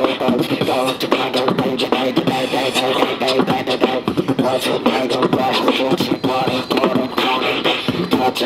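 Two beatboxers performing a hip hop beat together into handheld microphones: mouth-made kick and snare strikes in a steady rhythm, with pitched vocal tones running over the beat.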